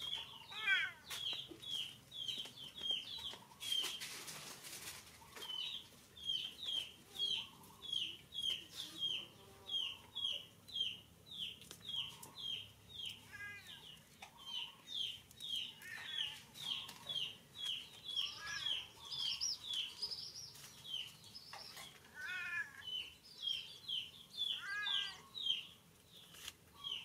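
Birds chirping: a steady run of short, high, falling peeps, a few each second, with now and then a lower call and a brief rush of noise about four seconds in.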